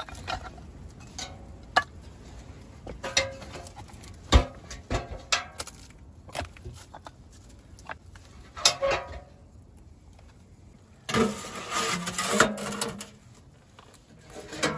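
Sheet-metal stovepipe being worked onto a small steel stove: scattered knocks and clinks of metal on metal. About eleven seconds in, a denser stretch of scraping and rattling.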